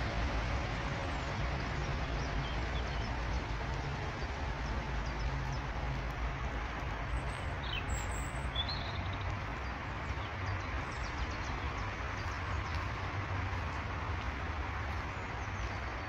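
Steady outdoor background rumble and hiss, with a few brief songbird chirps about halfway through.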